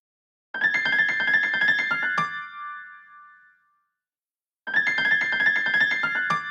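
Apple iPhone ringtone: a quick run of notes ending on one accented note that rings out, played twice, about four seconds apart.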